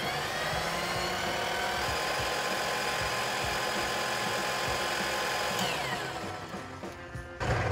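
Compound mitre saw's motor, fed reduced voltage through a rewound microwave transformer, spinning up with a rising whine, running steadily at about 2600 RPM, then coasting down with a falling whine near the end once the trigger is released.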